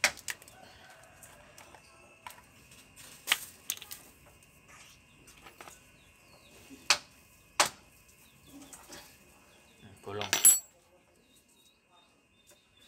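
Scattered sharp clicks and taps from a plastic engine-oil bottle being handled against a small diesel engine at the oil filler, with a louder clatter about ten seconds in.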